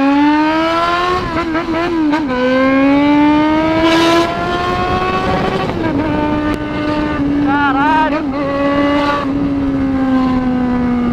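Yamaha XJ6's inline-four engine through a 4-into-1 full exhaust with no muffler, pulling under throttle: the note climbs, drops at a gear change about two seconds in, climbs again, then settles to a steady, slightly falling cruise.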